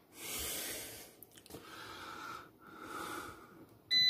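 Three soft breaths close to the microphone. Near the end the Instant Vortex Plus air fryer starts a steady high beep as its cook cycle starts.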